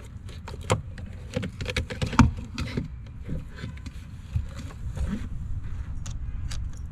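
Scattered clicks and knocks of plastic and metal as the fuel pump and sender housing assembly is pulled out of the fuel tank, the loudest knock a little past two seconds in, over a steady low hum.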